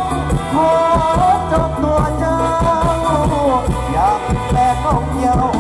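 Live mor lam band music: long, gliding held melody notes with singing over a steady drum beat and bass.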